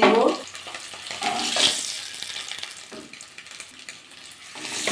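Hot oil sizzling in a non-stick kadai as turmeric-fried boiled eggs are lifted out, with a few light knocks of the spatula against the pan.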